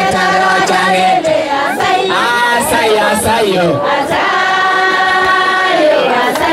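A group of voices singing together in chorus, with long held notes about two thirds of the way through.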